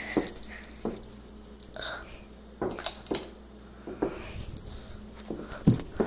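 Scattered clicks, knocks and rustles of someone moving about and handling things, with a sharper click near the end as a wall light switch is flipped on.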